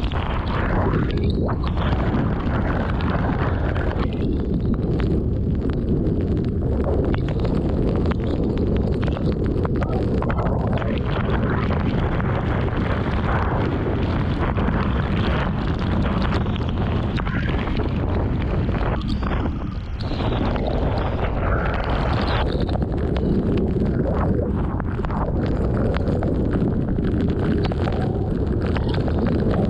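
Strong, gusty thunderstorm winds buffeting the microphone: a loud, continuous rush heaviest in the low end, easing briefly about twenty seconds in before picking back up.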